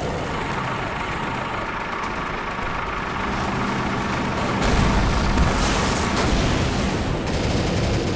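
Tank engine sound effect running steadily, growing deeper and louder about halfway through.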